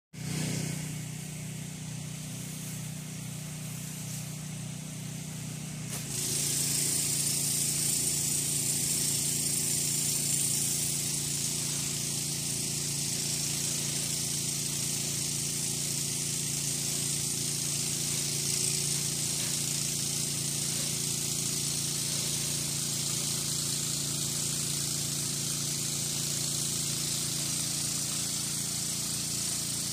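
Gas-engine pressure washer running steadily; about six seconds in the spray gun opens and the hiss of the high-pressure water jet joins it, the engine note shifting as it takes the load.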